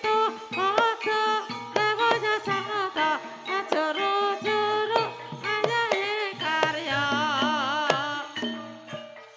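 Ebeg accompaniment music: a melody that bends in pitch over steady drum strokes, wavering in a trill about seven seconds in.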